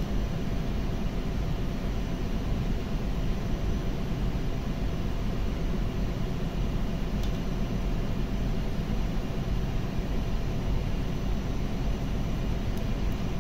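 Steady machinery drone with a faint hum running through it, and two faint clicks of metal pump parts being handled, one about halfway through and one near the end.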